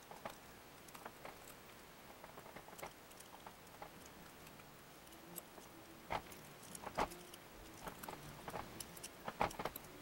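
Faint clicks and rustles of hands twisting and handling electrical wires at a ceiling fan's switch housing. There are a couple of sharper clicks about six and seven seconds in, and a quick run of them near the end.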